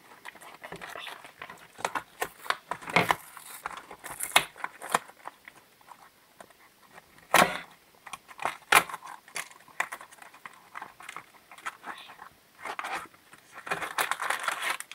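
Packaging of a toy-and-candy box being torn open and handled: irregular crackles, rustles and a few sharper tearing strokes, with a denser stretch of crinkling near the end.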